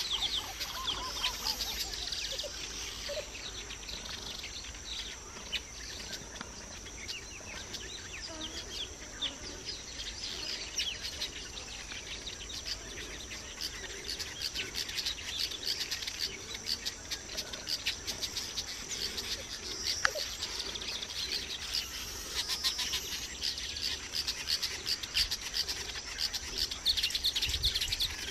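Many small birds chirping and twittering without pause, over a steady high insect drone.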